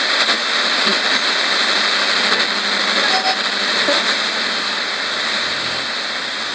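Portable radio giving out steady static hiss as its tuning dial is turned slowly by hand between stations, a couple of brief snatches of sound breaking through the hiss about three and four seconds in.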